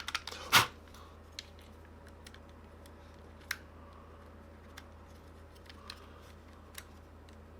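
Small plastic clicks and taps from a PS5 DualSense controller being handled and snapped together, with a louder click cluster right at the start and then a few isolated faint clicks a second or so apart.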